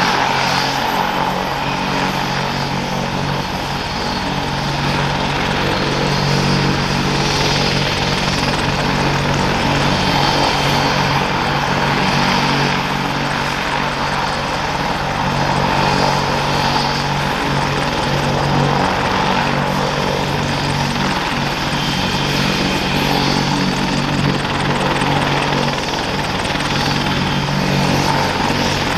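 Boeing AH-64D Apache helicopter running steadily on the ground with both General Electric T700 turboshaft engines going and the rotor turning, in the ground run before take-off.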